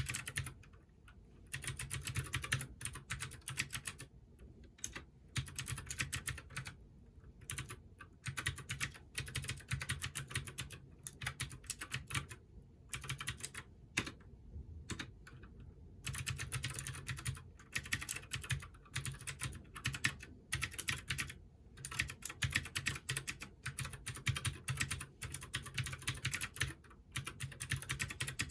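Typing on a Keychron K6 mechanical keyboard with clicky Gateron Blue switches: fast runs of sharp clicking keystrokes, broken by a few short pauses.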